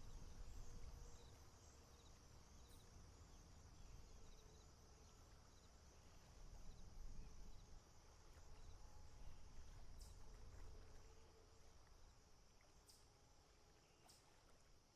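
Faint marsh ambience: a low rumble of wind on the microphone under a steady high insect drone, with a few faint chirps and clicks.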